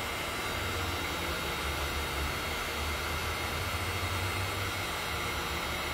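Heat gun running steadily, its fan blowing a constant rush of air with a low hum underneath.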